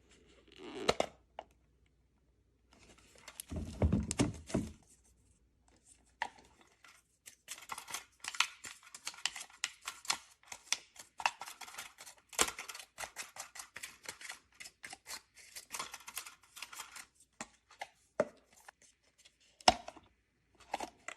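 Hands handling hard plastic parts. About four seconds in there is a short burst of knocking and rustling, then a long run of quick clicks and crackles, followed by a few scattered clicks.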